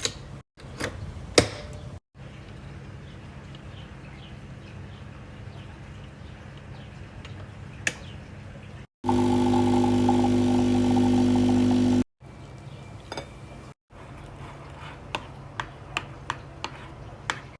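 Kitchen preparation sounds in short cuts: scattered light clinks and taps of utensils, and about halfway a small electric kitchen appliance running steadily for about three seconds before cutting off suddenly.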